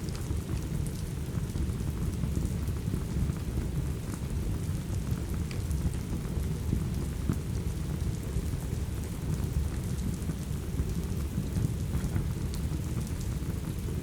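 Steady rain with a deep, even rumble underneath, and faint scattered crackles of a wood fire.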